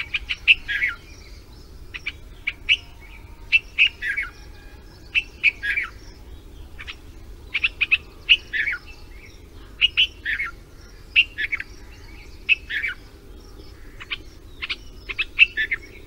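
Red-vented bulbul calling: short bursts of sharp chirping notes, many sliding downward in pitch, repeated every second or so over a faint steady background hiss.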